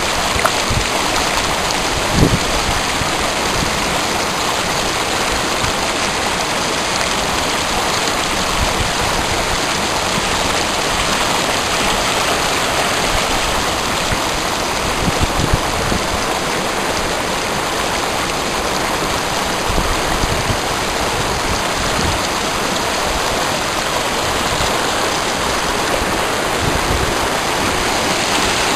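Mountain river flowing, a steady, even rush of water.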